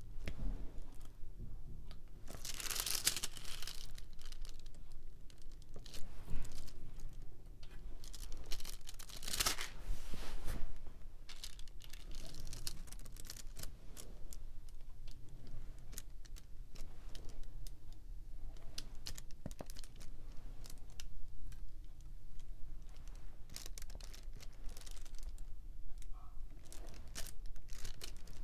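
Diamond painting in progress: many small clicks and taps of a drill pen picking up resin drills and pressing them onto the sticky canvas, with two louder crinkling rustles of plastic about three seconds and nine to ten seconds in.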